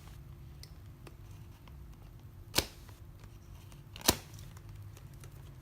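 Two sharp snaps, a second and a half apart, with a few faint ticks before them, as a hard plastic clamshell package is cut open.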